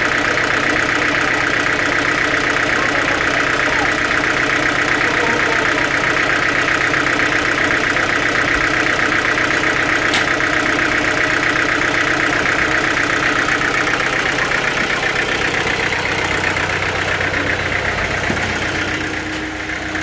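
Sawmill machinery running steadily, an engine-like drone with a high whine on top. About sixteen seconds in the whine fades and a lower hum comes up.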